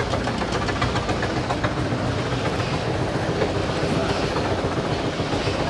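Bakery toast (rusk) slicing machine running, a steady, rapid mechanical clatter as it cuts slabs of baked toast.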